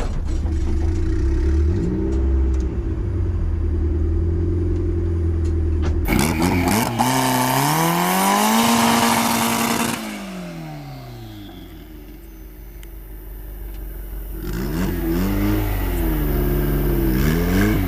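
Car engines running steadily, then about six seconds in one engine is floored, its pitch climbing hard under full acceleration before it falls away and fades as the car pulls off. Near the end an engine revs up and down again.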